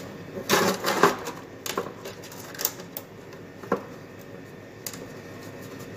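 Plastic water sump of an ice machine being worked back into place by hand, knocking and scraping as it is fitted: a short run of clattering about half a second to a second in, then a few scattered single clicks.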